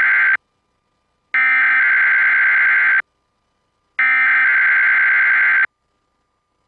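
NOAA Weather Radio SAME digital header for a Required Weekly Test, received off the air: harsh, raspy data bursts. The end of one burst is followed by two more full bursts, each about a second and a half long and a second apart.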